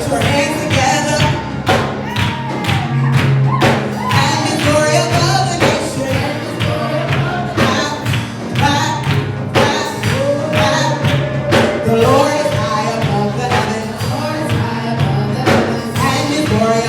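Live gospel worship music: a band with a steady beat of drums and tambourine under bass and singing voices.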